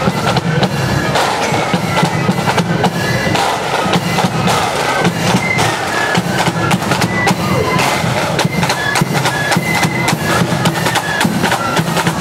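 Marching flute band playing: flutes carry a tune over steady drumming with a bass drum beat.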